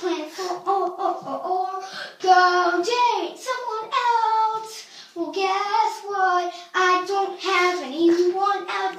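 A young boy singing a pop melody unaccompanied, in short phrases with brief breaks.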